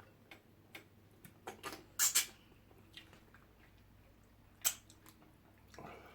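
Mealtime handling sounds: scattered small clicks and knocks, with two louder clacks about two seconds in and another near five seconds.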